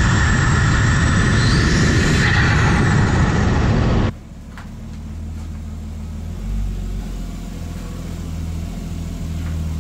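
Nissan RB25DET turbocharged straight-six revved loudly, heard close from the engine bay, with a whine rising in pitch. About four seconds in it cuts to the same engine running low and steady as the car creeps along.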